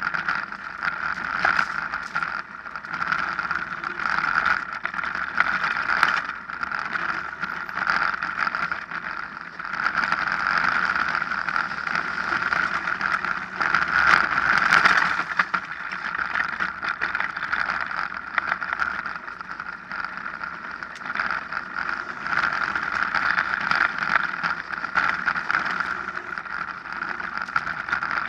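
Mountain bike running fast down a dirt forest trail: a steady noise of tyres on the ground, with many small clicks and knocks as the bike rattles over bumps, loudest about halfway.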